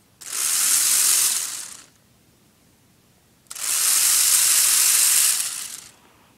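Lego Power Functions medium motor spinning a minigun barrel through two stages of big-gear-to-small-gear step-up, giving a loud, hissing whir of plastic gears. It runs twice: for under two seconds from just after the start, then again for about two and a half seconds from halfway through.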